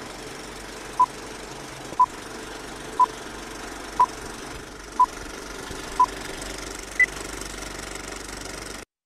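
Old-film countdown leader sound effect: six short beeps, one a second, then a single higher-pitched beep, over a steady rattling hiss. Everything cuts off suddenly near the end.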